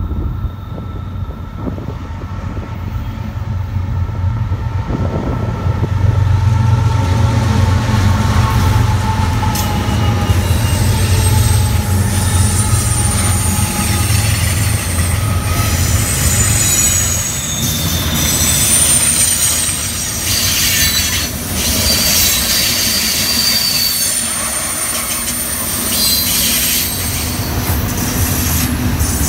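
BNSF diesel locomotives run past under load at the head of a double-stack intermodal freight train, their low engine hum strongest in the first half. After that the container cars roll by with wheel clatter and intermittent high-pitched wheel squeal.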